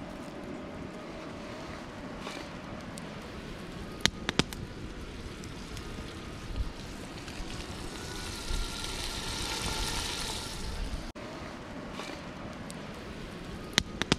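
Wood campfire crackling with a few sharp pops, and meat sizzling in a cast-iron pot hung over the flames; the sizzle grows louder for a few seconds past the middle.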